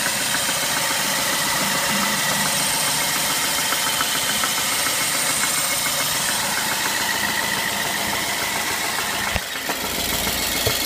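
BMW E90's engine idling steadily with a fast, light knocking running through it, an unexplained knock the owner is trying to locate. One short thump about nine seconds in.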